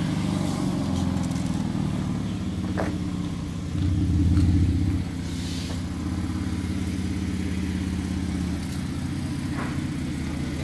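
SUV engine running at idle, steady and low, and briefly louder for about a second around four seconds in.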